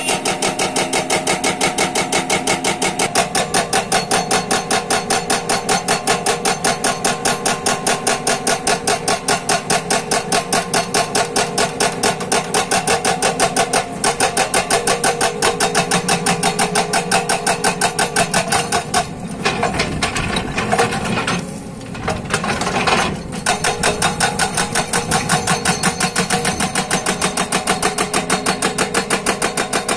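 Hydraulic breaker on a JCB tracked excavator hammering rock and concrete with rapid, even blows, several a second, over the excavator's running engine. The hammering stops for a moment a few times about two-thirds of the way through, then picks up again.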